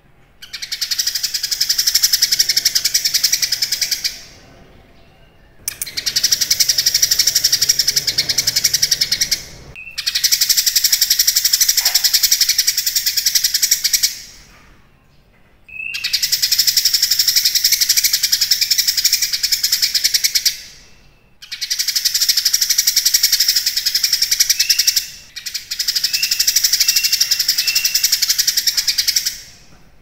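Caged cucak kinoi, a leafbird, singing in long bouts of rapid, high-pitched chattering song, six bouts of about four seconds each with short pauses between them.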